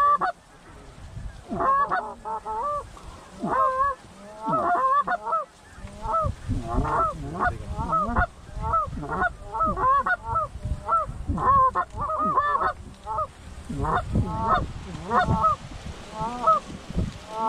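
Canada goose honks and clucks: many short calls in quick succession, two to three a second, starting about a second and a half in after a brief lull.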